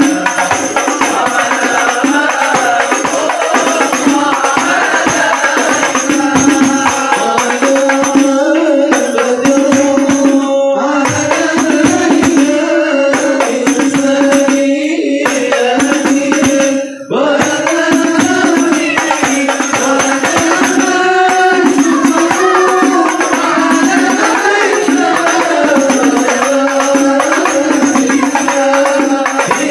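Men's voices singing a devotional chant together, accompanied by hadrah frame drums (rebana) beaten by hand in a quick, steady rhythm. The drumming drops out for short moments several times around the middle.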